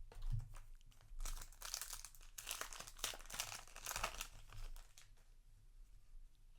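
Crinkling and rustling of a Yu-Gi-Oh! booster pack's foil wrapper and cards being handled, in a run of crisp crackles that thins out after about four and a half seconds.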